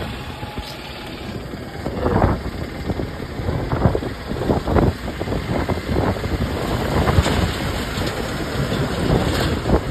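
Vehicle engine running, with gusts of wind buffeting the microphone in irregular thumps.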